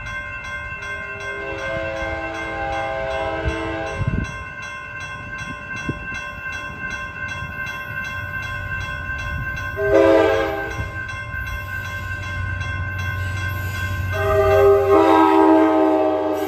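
Grade-crossing warning bell ringing about three times a second while an approaching Amtrak Pacific Surfliner train sounds its horn: two long blasts at the start, a short one about ten seconds in, and a long one from about fourteen seconds. The train's low rumble grows as it reaches the crossing.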